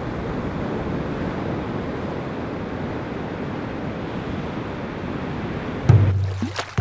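Ocean surf breaking and washing up a beach, a steady rush of waves. About six seconds in, a loud, deep note cuts in suddenly and comes back with sharp starts, as music begins.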